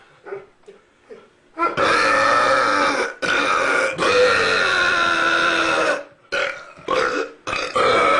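Men belching deliberately, a run of long drawn-out burps one after another. After a short pause comes one of about a second and a half, then a brief one, then one of about two seconds, then several shorter ones near the end.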